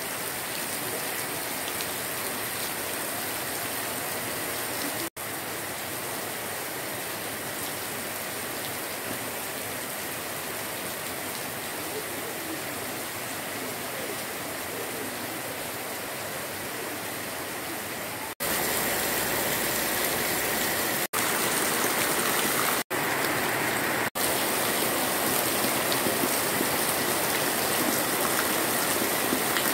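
Heavy tropical rain falling steadily, a constant even hiss of rain on grass and ground. About two-thirds of the way in it becomes louder, as rain splashing into wet grass and puddles close by, with a few momentary breaks.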